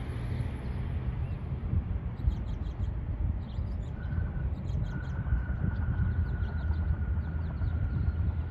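Low, gusty rumble of wind on the microphone mixed with the distant jet noise of an Airbus A220-300 rolling out after landing. A thin steady whine comes in about four seconds in, and a few faint bird chirps sound around the middle.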